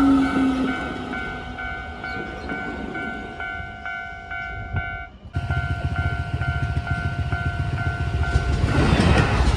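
Japanese railway crossing alarm ringing in a rapid, even, repeating pattern. A low tone falls and fades in the first second, the sound cuts out briefly about five seconds in, and a train's rumble builds near the end.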